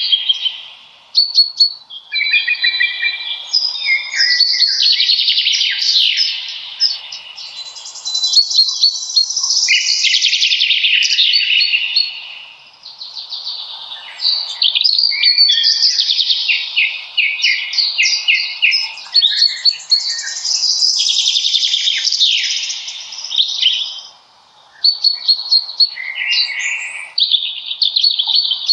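Songbirds singing, with quick high chirps and trills overlapping in phrases of a few seconds and brief lulls between them.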